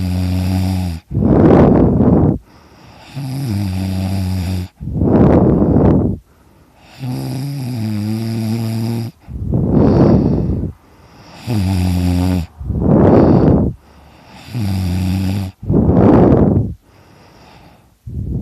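A man snoring loudly in his sleep, about six slow breath cycles. Each cycle is a buzzing, droning snore followed by a louder rushing breath.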